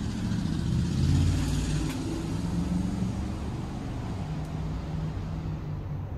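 A motor vehicle's engine running steadily with a low hum, swelling a little about a second in.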